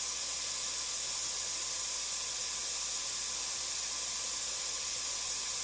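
Vacuum cleaner running steadily: an even, unbroken hiss with a steady high-pitched whine over it.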